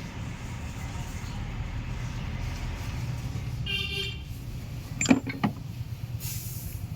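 Steady low mechanical rumble, like a vehicle engine running, with a brief high tone about four seconds in and two sharp metallic clicks about a second later.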